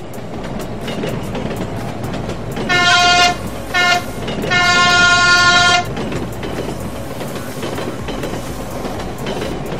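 Dubbed sound effect of a full-size train running, its wheels clicking over rail joints, with three horn blasts a little under three seconds in: short, very short, then a longer one, louder than the running noise.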